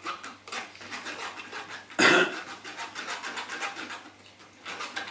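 Rapid rhythmic scraping and rubbing of hands working at a kitchen counter, with one loud clatter about two seconds in.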